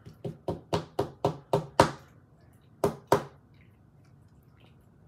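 Rigid plastic toploader holding a trading card, rapped against a wooden desk to settle the card down inside it. There are about eight quick knocks at roughly four a second, growing louder, then two more a second later.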